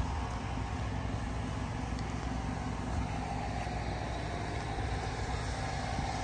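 A 1996 Subaru Sambar kei truck's 660 cc four-cylinder engine idling steadily.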